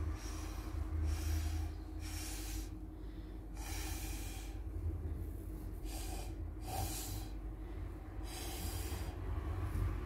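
Short puffs of breath blown through a plastic straw onto wet acrylic paint, about eight hissing blows, roughly one a second, to push the poured paint into flower shapes. A steady low hum runs underneath.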